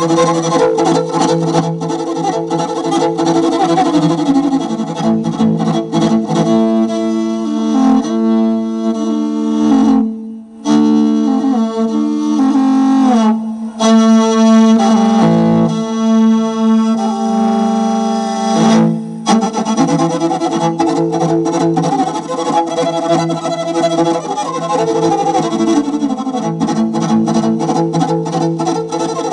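Morin khuur (Mongolian horsehead fiddle) being bowed: a steady low drone under a melody. It plays fast, rhythmic bow strokes at the start and end, with slower held notes in the middle, and breaks off briefly about ten seconds in.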